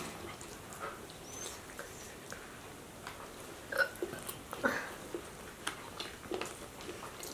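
Eating by hand: soft chewing and mouth smacking and the small clicks of fingers picking at fish and rice on a banana leaf, with two louder short sounds about four and a half seconds in.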